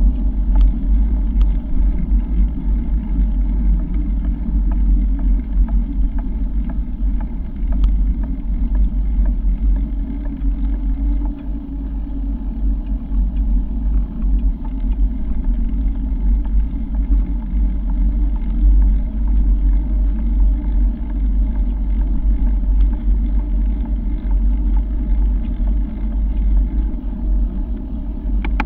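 Steady low rumble of wind buffeting the microphone, mixed with the rolling noise of tyres on an asphalt path, heard from a camera travelling along at riding speed. A few light clicks from bumps come through.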